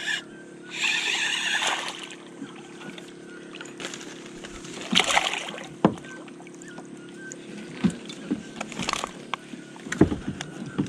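A spinning reel whirring as a silver croaker is wound in, then the fish splashing and thrashing at the side of a plastic kayak about five seconds in, and sharp knocks as it is swung aboard onto the hull near the end.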